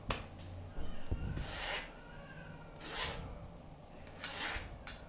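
Boiled potato being pressed and scraped through a fine wire-mesh sieve. There is a sharp click at the start, then three scraping strokes about one and a half seconds apart.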